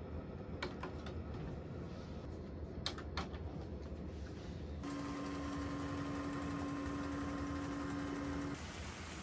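RCA VCR rewinding a videotape. A few mechanism clicks come first, then a steady motor whir about halfway in that holds for some three and a half seconds and cuts off shortly before the end.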